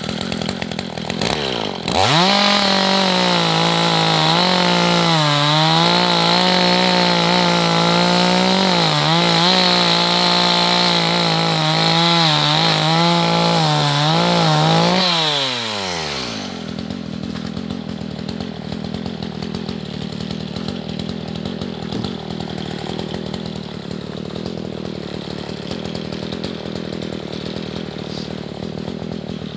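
Gas chainsaw revving up to full throttle about two seconds in and cutting through a log for some thirteen seconds, its pitch dipping again and again as the chain bites into the wood. It then drops back to a steady, quieter idle.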